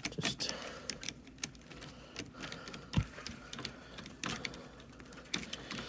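Light, irregular clicks and scrapes of a Torx screw being fitted and driven by hand into a plastic soft-top bow knuckle, with one sharper knock about three seconds in.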